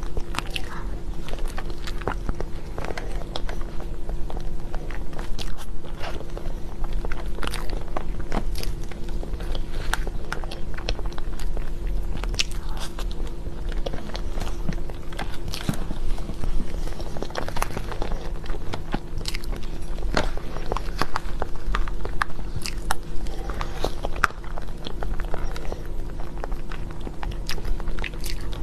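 Close-miked eating of chocolate desserts: a run of irregular bites, chewing and small crunchy clicks, over a steady low hum.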